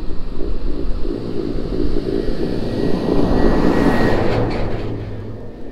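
Motors and propellers of a 5-inch FPV quadcopter (T-Motor F40 Pro, 1950 kV) running in flight. The sound grows louder as the quad comes close, is loudest about four seconds in, then fades as it flies away.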